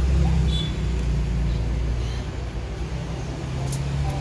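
Busy street ambience: a steady low rumble of traffic with a faint murmur of voices.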